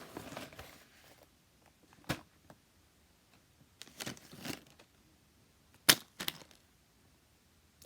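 Handling noises: soft rustling with a few sharp clicks, the loudest about two seconds in and two close together about six seconds in.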